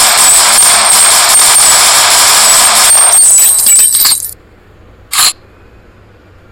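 Thompson M1921 submachine gun firing one long rapid burst, which breaks into a few separate shots and stops abruptly a little over four seconds in. About a second later comes one short, sharp sound.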